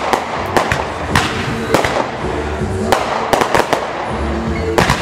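Aerial fireworks shells bursting overhead: about a dozen sharp bangs and crackles at irregular intervals, with a quick run of four about three and a half seconds in. Music plays underneath.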